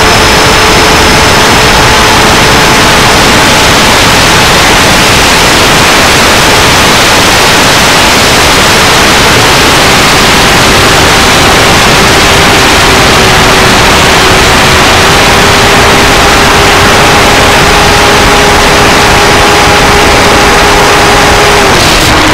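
105 mm electric ducted fan jet in flight, heard from a camera on its airframe: a loud, steady rush of wind with a steady fan whine over it. The whine drops slightly in pitch about halfway through and falls away near the end.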